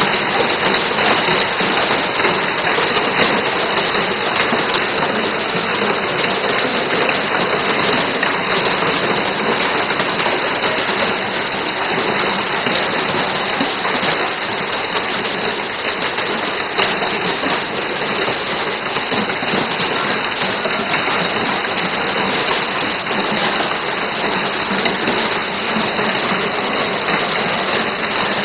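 Hail and heavy rain falling in a dense, steady rush of noise without a break.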